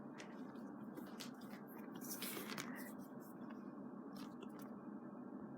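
Faint rustling and light clicks of merchandise packaging being handled, with a longer rustle about two seconds in, over a low steady background hiss.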